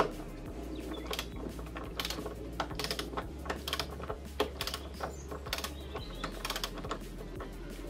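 Ratcheting torque wrench clicking in short irregular runs as it is swung back and forth, unscrewing an already-loosened bolt on top of a car's strut tower.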